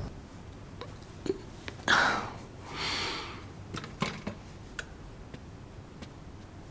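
A person moving about in a quiet small room: a few soft clicks and knocks, and two breathy rushes of noise about two seconds in, the first the loudest.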